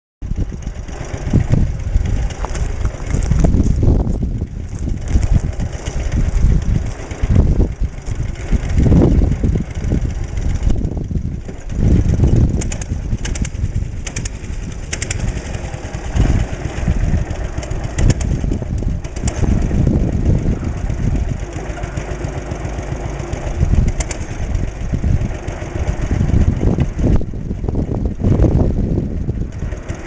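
The 5.5 hp JAP 5 engine of a Trusty two-wheeled tractor running, its loudness rising and falling unevenly.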